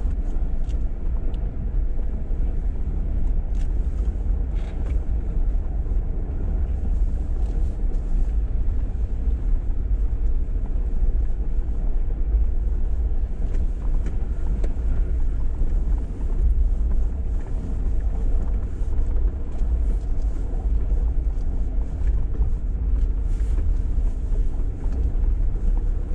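Jeep Wrangler driving up a snowy off-road trail: a steady low rumble of engine and tyres, with scattered light clicks and rattles.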